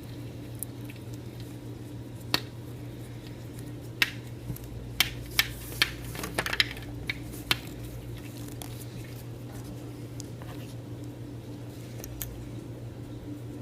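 Hands working paracord and a plastic buckle: scattered sharp clicks and short rustles as the cord is wrapped and pulled, most of them in the first half, over a steady low hum.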